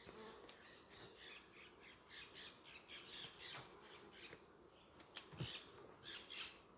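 Faint bird calls: scattered clusters of short, high calls, several in a row, over a very quiet background.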